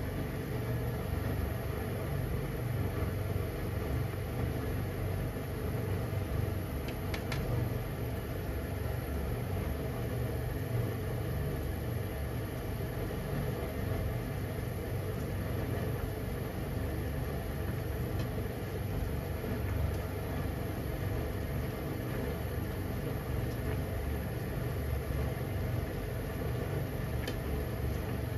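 Steady low rumble at a gas stove where a pan of broth with vegetables and chikuwa is boiling hard, with a faint click about 7 seconds in and another near the end.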